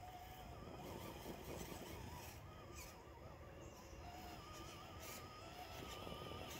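Traxxas TRX-4 G500 radio-controlled crawler's electric motor and gears whining faintly as it crawls over roots and leaf litter. The whine wavers with throttle and steps up in pitch a little past the middle, with a few light crackles from the tyres on twigs.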